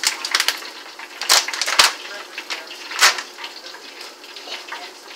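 Dry cookie mix pouring from a plastic pouch into a stainless steel mixing bowl, a rustling pour broken by a few sharp crinkles of the pouch.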